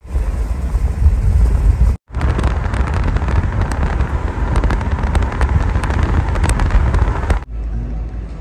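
Wind buffeting the microphone with road noise from a moving car, a dense low rumble with scattered crackles. It cuts out abruptly for a moment about two seconds in and drops to a quieter rumble near the end.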